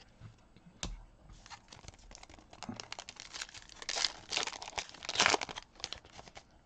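Foil trading-card pack being torn open and its wrapper crinkled as it is peeled off the cards. The crinkling is loudest a little past the middle.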